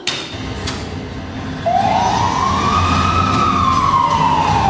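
An ambulance siren wailing once, rising and then slowly falling in pitch, over a low engine rumble, played over a hall's loudspeakers. A sharp click comes at the very start.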